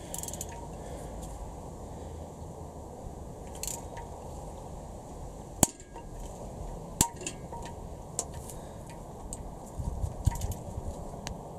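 A torque wrench and socket work an ARP head stud nut on the cylinder head, making scattered metallic clicks and clinks. Two sharp clicks stand out, about five and a half and seven seconds in.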